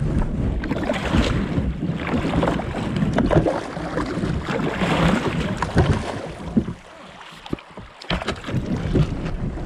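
Kayak hull scraping over the rocky bed of a shallow river, in the low water of a scraping-depth flow. It eases off about two-thirds of the way through, then picks up again.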